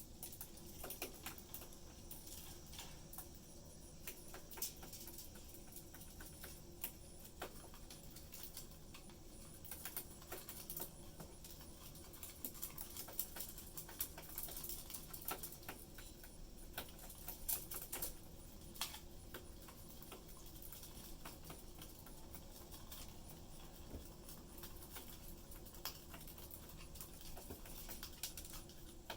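Pet budgies busy in their cage: faint, irregular small clicks and taps, a few louder than the rest.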